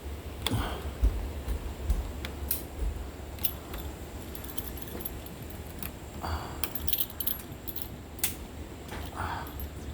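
Light metallic jingling with scattered clicks and taps.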